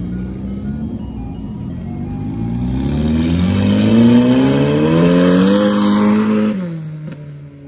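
Turbocharged Honda F20B four-cylinder in a mid-engine, rear-drive CRX accelerating hard on sand and passing close by. The engine note climbs steadily and grows louder, with a rushing hiss of spinning tyres throwing sand. About six and a half seconds in, the note drops sharply as the driver comes off the throttle, and the sound fades away.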